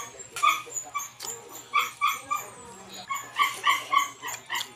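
A dog whimpering and yipping in short, high, repeated cries, several a second, with close chewing and lip-smacking clicks.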